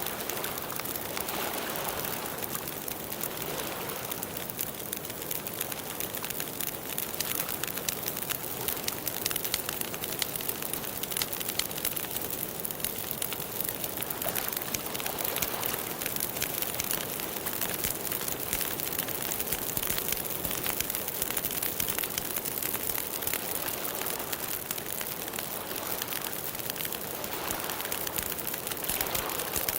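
Campfire burning with a steady, dense crackle of many small pops over a soft hiss.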